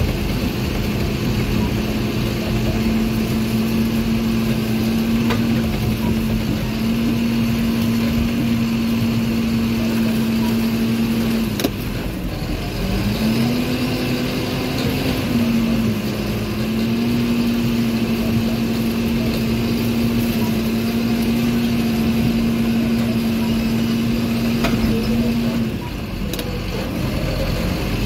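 John Deere 7530 tractor's six-cylinder diesel engine running steadily under load while pulling a plough, heard from inside the cab. Its pitch sags briefly and picks back up about twelve seconds in and again near the end.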